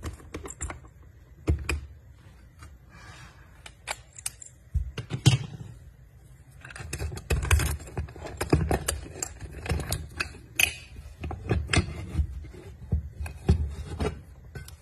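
Key and hand handling of a wall safe disguised as an electrical outlet: the key scraping and clicking in its lock, the plastic cover opening and the hidden compartment being handled. It is a run of sharp clicks, taps and scrapes that gets busier about halfway through.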